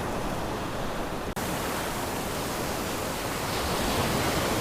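Surf waves breaking and washing, a steady rush of noise, with a brief cut about a second in.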